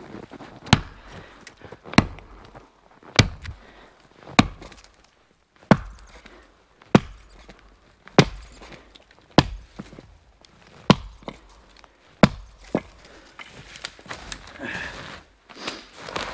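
Axe chopping into felled green pine: about ten hard, evenly paced chops, roughly one every second and a quarter, followed by several lighter hits near the end.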